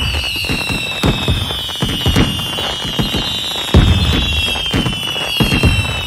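Fireworks going off: a quick, uneven run of bangs with low booming tails, under several overlapping high whistles that slowly fall in pitch. The loudest boom comes a little past halfway.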